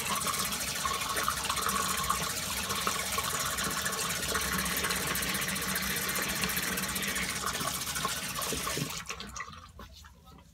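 Water running steadily from a sink tap, shut off about nine seconds in: the rinse at the end of a wet-shave pass.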